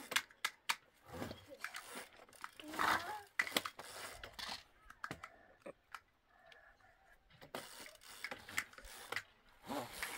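Plastic toys being handled by a small child: scattered clicks, knocks and rustles at irregular intervals.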